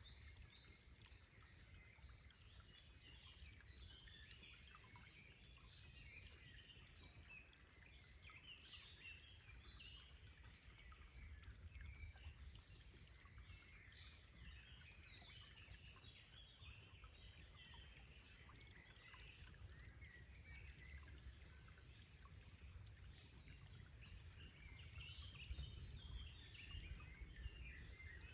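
Faint chorus of small songbirds chirping and twittering in woodland, many short overlapping calls that grow busier near the end, over a low steady rumble.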